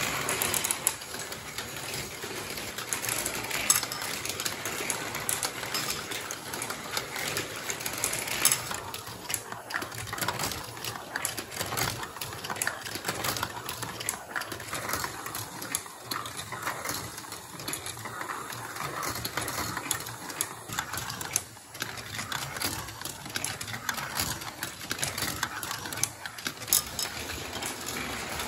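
Marbles rolling and clattering through a plastic GraviTrax marble run: a steady, dense stream of clicks and rattles, with louder knocks now and then.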